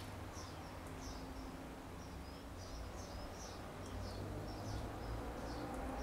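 House sparrows chirping: a steady string of short, high chirps, about two a second, over a low background rumble.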